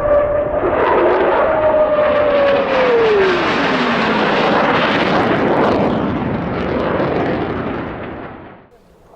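F-15 Eagle fighter jet passing low, a loud jet roar with a whine that falls in pitch about three seconds in as it goes by, then fading away near the end.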